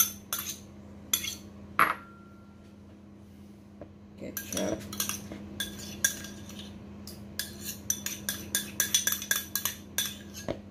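Metal spoon clinking and scraping against bowls as brown sugar and then ketchup are scooped out into a mixing bowl. The clinks come in quick runs, with a pause of about two seconds starting about two seconds in.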